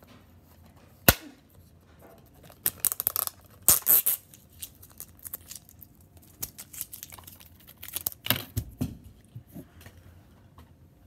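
Plastic wrapping being picked at and torn off a DVD case: irregular crackles and rips, with a sharp click about a second in and louder bursts of tearing around the fourth second and again near the ninth.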